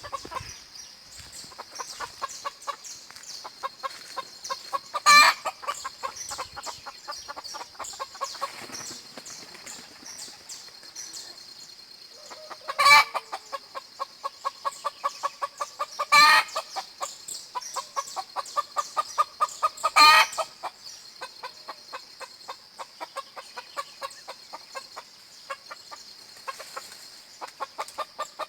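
Chickens clucking in a fast, continuous run of short calls, broken by four loud, short calls spread through, over a steady high-pitched background of birdsong.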